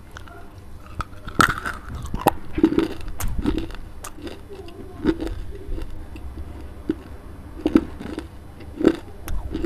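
Close-up crunching and chewing of a piece of white clay, picked up by a lapel microphone held at the mouth. Crisp cracks come every second or so between softer grinding chews.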